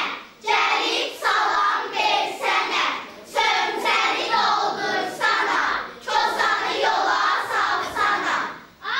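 A small group of children singing together in unison, in phrases of about three seconds with brief breaks between them.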